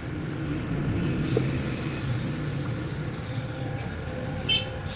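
A motor vehicle engine running with a steady low rumble, and a brief sharp high chirp about four and a half seconds in.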